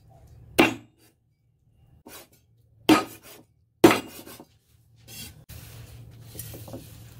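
Meat cleaver chopping through roast chicken on a wooden chopping board: three hard chops with a few lighter knocks between them. Near the end, a softer scraping as the chopped pieces are slid off the blade onto a ceramic plate.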